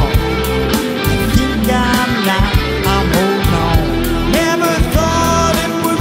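A rock band's recorded song playing: a steady drum beat over bass and guitar, with melodic lines that bend in pitch.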